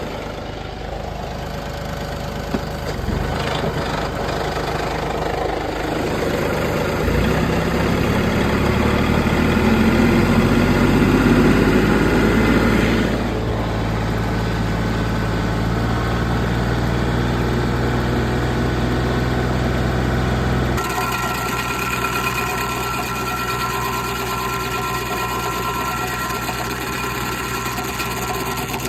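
Mechmaxx stump grinder's gasoline engine running. About seven seconds in it shifts to a deeper, louder run, and about two-thirds of the way through its sound changes abruptly.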